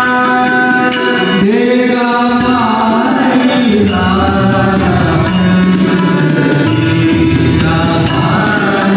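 Men singing a devotional Marathi lavani with instrumental accompaniment, the melody sliding and held over a steady drone and beat.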